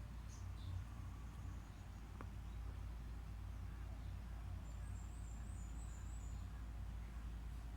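Faint outdoor ambience with a steady low rumble; a small bird gives a few high chirps near the start and a short high-pitched trill about five seconds in.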